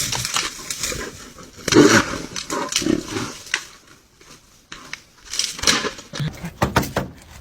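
A pet animal's calls, several separate ones, the loudest about two seconds in.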